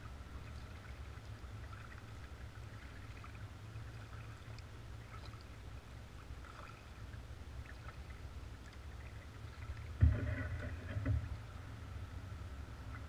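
Kayak being paddled slowly on calm water, heard as a steady muffled low rumble with faint drips and trickles. A sharp knock about ten seconds in.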